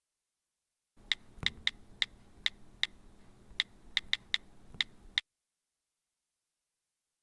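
A series of about a dozen short, high-pitched squeaks at uneven intervals, lasting about four seconds.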